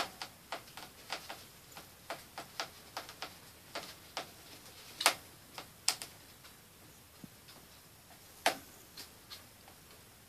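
Pet rats moving about in a wire cage: irregular sharp clicks and taps, a few a second, with a few louder knocks about halfway through and again later on.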